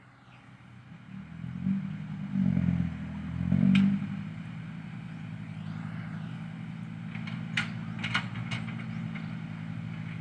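Heavy diesel machinery engine running, swelling louder twice in the first four seconds, then settling to a steady level, with a few sharp clanks between about seven and nine seconds in.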